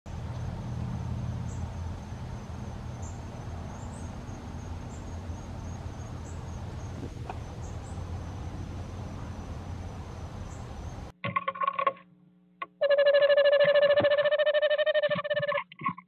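A steady hiss and low hum, then after a sudden change about eleven seconds in, an eastern screech owl calling inside its nest box, close to the box camera's microphone. It gives a short call, then one long even trill lasting about three seconds.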